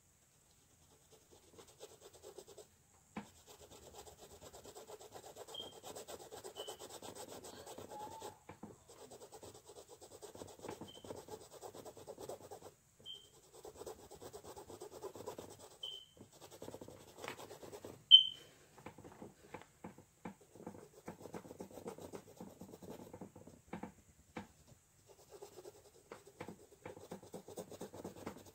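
Paintbrush scrubbing acrylic paint onto a canvas in stretches of soft rubbing with short pauses. Several brief high squeaks come through, one much louder than the rest about two-thirds of the way in.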